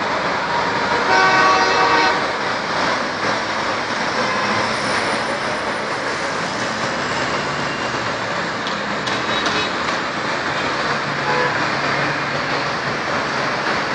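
Steady roar of road traffic and breaking waves, with a vehicle horn sounding for about a second near the start.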